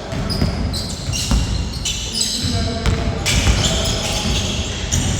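A basketball bouncing repeatedly on a hard indoor court during play, in a reverberant hall.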